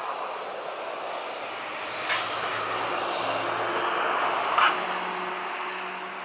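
Jet engines of an Airbus A320-family airliner on final approach: a steady rushing engine noise that builds as the aircraft nears and eases slightly near the end, with a low hum coming in about halfway. Short sharp clicks sound about two seconds in and, loudest, about four and a half seconds in.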